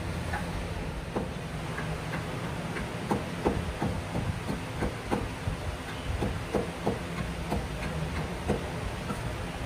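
Short, sharp wooden knocks, irregular at about one to two a second, as a small hatchet chops and shaves the wooden handle of a sledgehammer. A steady low hum runs underneath.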